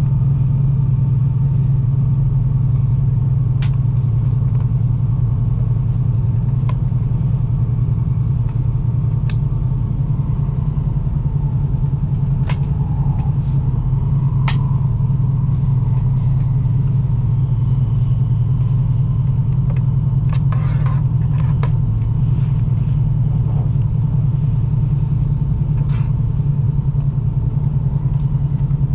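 Cabin noise of a Joetsu Shinkansen train running at speed: a steady low rumble, with a few sharp clicks here and there and a short flurry of them a little past the middle.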